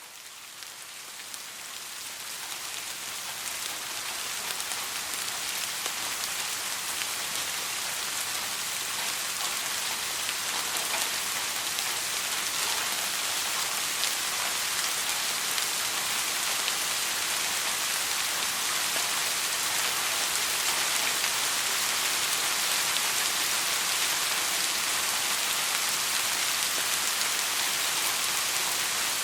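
Steady rainfall, a dense even hiss of drops, fading in over the first few seconds and then holding level.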